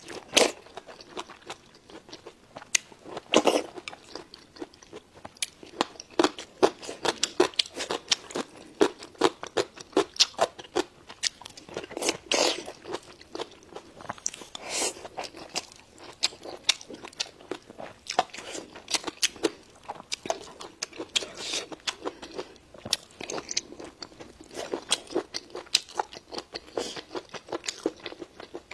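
A person chewing crunchy food close to the microphone: a steady run of sharp, crisp crunches and bites.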